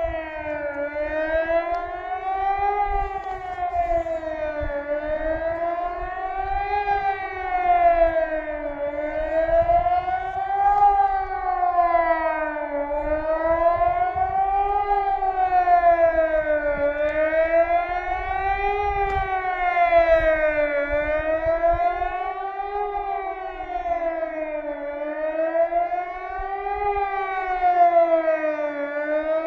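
Ergatec APEX-6 electronic civil-defence siren sounding the Swiss general alarm test: a continuous wail that rises and falls in pitch about every two seconds, with a lower second tone moving along with it.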